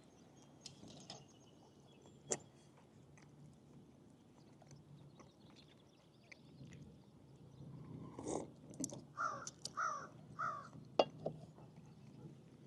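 A bird giving three harsh, cawing calls about half a second apart a few seconds before the end, with a few faint sharp clicks around them.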